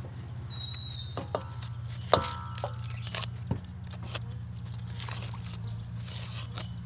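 Cleaver blades cutting and scraping the dry skins off whole onions: scattered crisp crunches and clicks, with one sharper knock about two seconds in that rings briefly, like metal touching metal. A low steady hum runs underneath.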